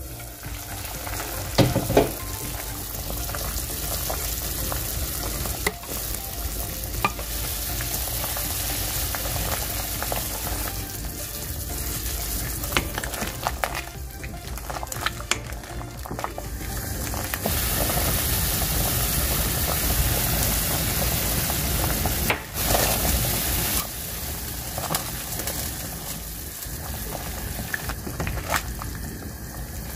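Pot of beef and radish soup boiling hard with a steady bubbling hiss, while a ladle stirs it and clinks against the stainless steel pot, loudest about two seconds in.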